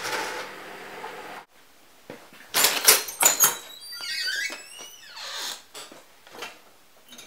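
A steady workshop hum that cuts off abruptly about one and a half seconds in. Then a run of sharp clanks and knocks, with glass clinking, as an annealer full of blown glass vessels is opened and the vessels are handled, followed by lighter scattered knocks.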